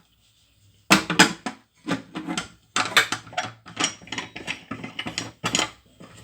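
Pressure cooker lid being fitted and closed: a run of metal clanks, clicks and scrapes, starting about a second in.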